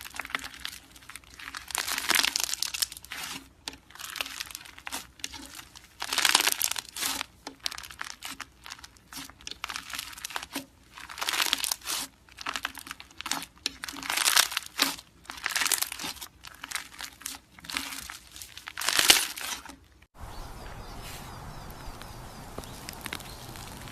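Crunchy slime squeezed and kneaded by hand, crackling and crinkling in repeated bursts every second or two. About twenty seconds in the crackling stops, and a quieter steady hiss follows.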